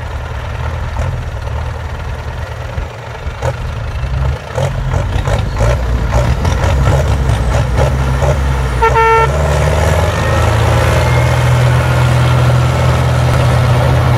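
Belarus 892 Turbo tractor diesel engine running hard under load, pulling a cassava-laden tractor stuck in mud. A run of knocks comes in the middle, a short horn toot sounds about nine seconds in, and the engine then grows louder.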